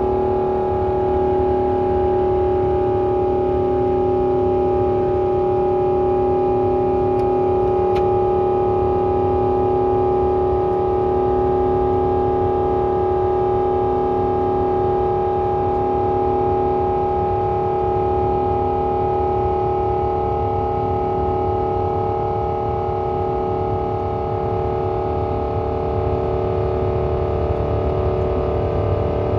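Airbus A350's Rolls-Royce Trent XWB turbofan heard from inside the cabin during climb-out after takeoff: a steady engine drone with a few held humming tones over a low rumble.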